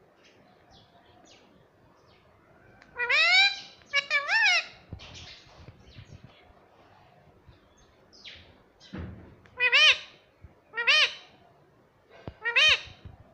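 Indian ringneck parrot giving five short, loud, pitch-bending calls in spaced bursts. There is a low thump just before the second group of calls.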